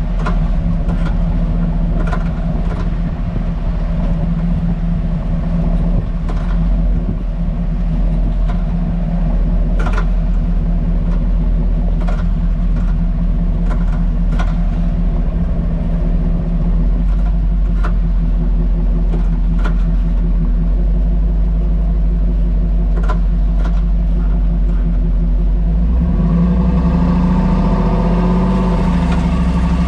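Hummer H2 driving slowly, heard from under the body: a steady drone from the drivetrain and tyres, broken by irregular sharp clicks and taps every second or two. These are the rear-end rattling and cracking noises of something loose, which new springs, shock absorbers, spring seats and sway bar links and bushings have not cured. The running note grows louder and busier near the end.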